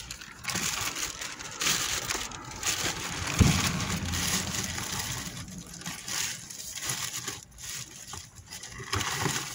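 Plastic bags crinkling and cardboard rustling as gloved hands rummage through bagged vegetables in a bin. A dull thump comes about three and a half seconds in.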